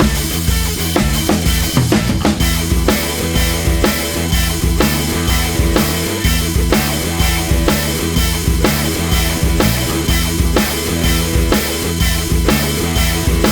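Background music with a drum kit keeping a steady beat over sustained bass and other instruments.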